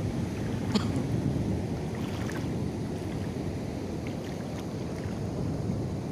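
Steady rumble of wind on the microphone mixed with the wash of surf, with a couple of faint clicks.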